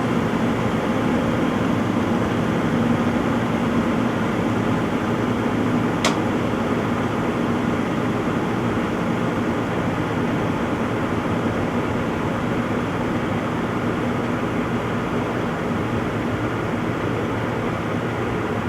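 Front-load washing machine running in its spin cycle: a steady whirring hum with one short click about six seconds in.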